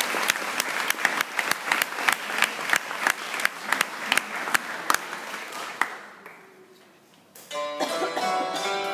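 Audience clapping, thinning out and dying away over the first six seconds or so. About seven and a half seconds in, a Hackbrett (Alpine hammered dulcimer) starts playing, its struck strings ringing.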